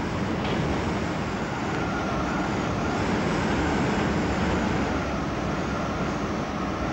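Strong desert sandstorm wind blowing steadily, a dense rushing noise with a faint wavering whistle above it.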